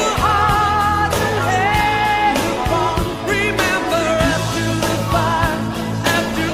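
Pop song with a sung vocal melody over bass and drums.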